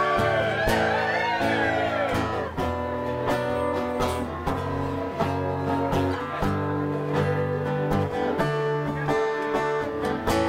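Acoustic guitar strummed in a steady rhythm through an instrumental break. A held sung note wavers over the chords during the first two seconds.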